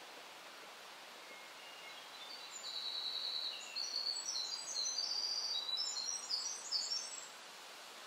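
A songbird singing a long song of quick, high notes at changing pitches, starting about two seconds in and lasting about five seconds, over a steady outdoor hiss.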